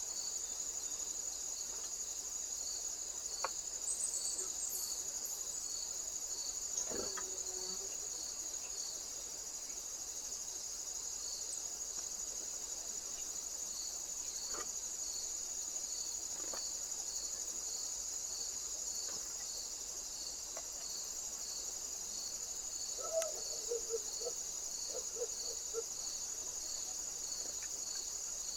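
Crickets singing: a continuous high trill with a second chirp pulsing in a steady beat just below it, a little more than once a second. A few faint clicks and, near the end, a short run of low rapid notes.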